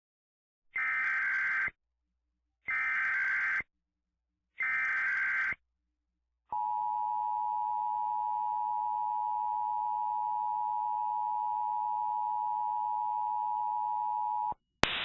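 Emergency Alert System tones: three SAME header data bursts of about a second each, a second apart, followed by the two-tone EAS attention signal (853 and 960 Hz) held steady for about eight seconds. Right at the end it cuts off and a click brings in static hiss.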